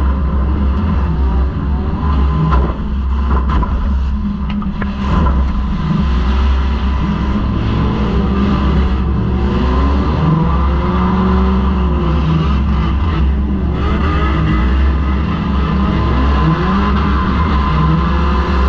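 Four-cylinder demolition derby car's engine revving hard, rising and falling in pitch as it accelerates and backs off. Several sharp metal bangs from collisions come in the first five seconds and again about halfway through.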